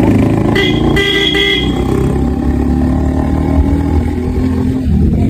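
Vehicle engine running steadily at idle, with a horn sounding twice in quick succession about half a second in.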